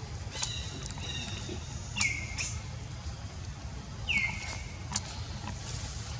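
A monkey giving high-pitched calls: a thin whine about half a second in, then two squeals about two seconds apart, each dropping in pitch and holding, with a few sharp clicks between.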